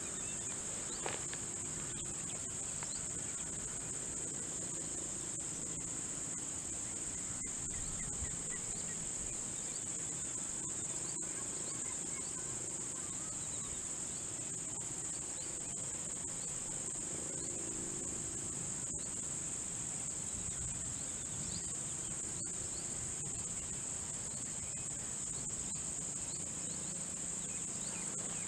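Steady, high-pitched chorus of insects, one continuous shrill band with no breaks, over a faint low background rumble.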